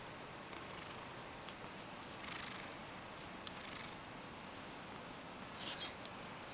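Ragdoll cat purring faintly while being stroked, with soft brushing rustles of a hand moving over its long fur and one small click about halfway through.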